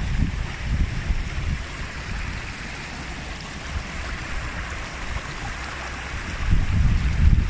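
Wind buffeting the microphone in uneven gusts, swelling again near the end, over a steady rushing hiss.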